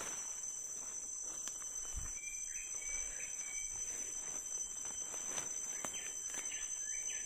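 Tropical forest ambience: a steady high-pitched insect drone, with a bird giving short chirping notes about two seconds in and again in a quick series near the end, over faint scattered clicks and rustles.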